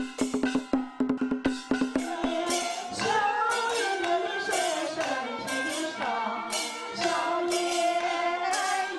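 Live Chinese folk music: a small studded drum struck in a rapid pattern, then from about three seconds in a woman's voice sings a wavering melody over continuing jingling percussion.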